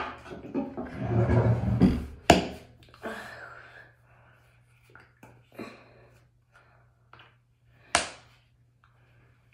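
Small knocks, taps and rustles of a toothbrush and toothpaste tube being picked up and handled at a bathroom sink. There is a sharp knock about two seconds in and another near the end, with a dull rumbling noise before the first knock.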